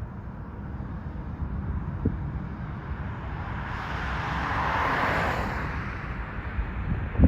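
Jet airliner passing by, its engine noise swelling to a peak about five seconds in and then easing off.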